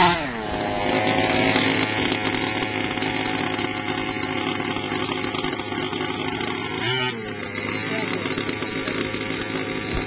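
Small two-stroke gasoline engine of a large-scale RC buggy. It revs up and falls back at the start, then idles steadily, with a brief rise and fall in pitch about seven seconds in.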